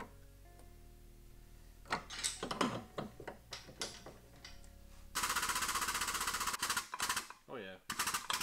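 Steel pulling clamp and chain being rigged to a car body: a few sharp metal clanks, then a loud, fast metallic rattle for about a second and a half a little past the middle.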